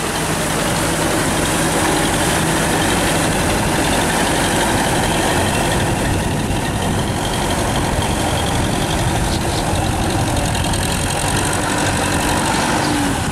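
Diesel engine of a TAFE 5900 DI tractor running steadily under load while its rear rotavator churns through flooded paddy mud.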